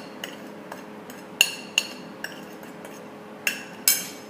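A metal spoon clinking against a plate and bowl about five times as salt and spices are tipped into a marinade, each clink short with a brief ring.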